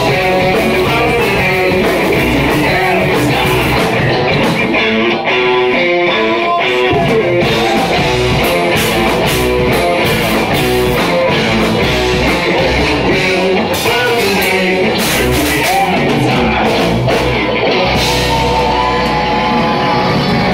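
Live heavy metal band playing loudly: distorted electric guitar, bass guitar and drum kit, with a vocalist singing into a handheld microphone at times.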